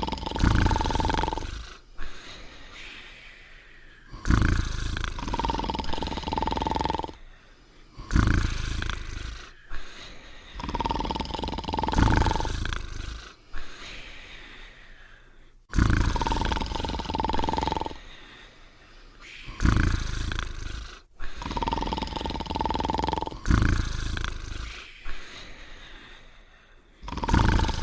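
Cartoon snoring of sleeping dogs: a loud rasping snore paired with a whistling tone, repeating about every four seconds with quieter breaths between.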